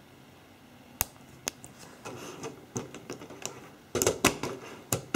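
Plastic LEGO Technic parts clicking and snapping together as pins and axles are pressed into place, with handling rustle between the clicks. There are sharp single clicks about one and one and a half seconds in, then a denser, louder cluster about four seconds in and one more click near the end.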